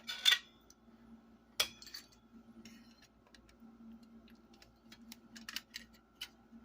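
Parts of a computer monitor being handled and pried during a teardown: a short rattle near the start, a sharp click about a second and a half in, then scattered light clicks and clinks. A faint steady hum runs underneath.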